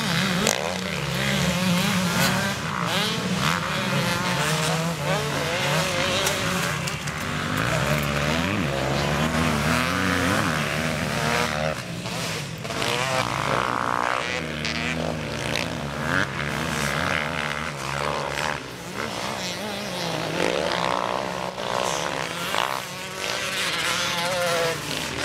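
Several motocross dirt bikes riding the track, their engines revving up and down over and over, with overlapping engine notes rising and falling in pitch.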